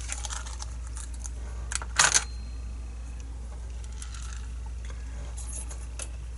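Small metal lock parts and tools clicking and clinking on a work surface, with a sharp cluster of clicks about two seconds in and a few fainter ones near the end, over a steady low hum.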